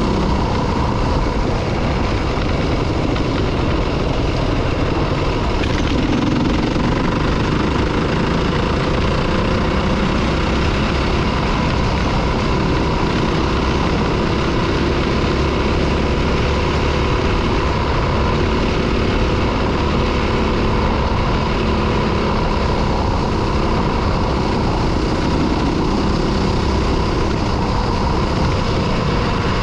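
Yamaha WR250F dirt bike's single-cylinder four-stroke engine running at a steady pace while riding along a gravel track, with no big revs, heard from the bike's own camera amid wind and road noise.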